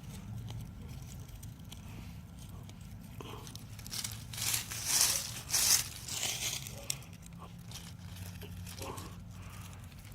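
Rustling and crunching of leafy plants being handled, in a few louder bursts about four to six seconds in.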